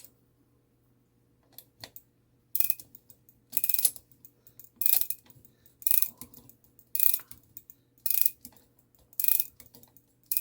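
A 1960s mantel clock movement being wound with a key. The mainspring's ratchet clicks in short bursts about once a second, one burst per turn of the key, starting a couple of seconds in.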